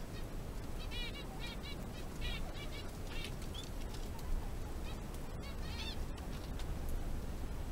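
Guinea pigs squeaking while they eat: short, high peeps, several in quick succession, over a steady low rumble.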